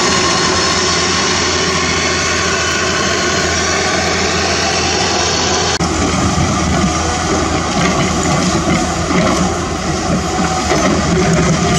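A CAT 320D2 excavator's diesel engine running steadily. About six seconds in the sound cuts abruptly to a loaded Toyota dump truck's diesel engine as the truck drives slowly over the dirt, rougher and more uneven.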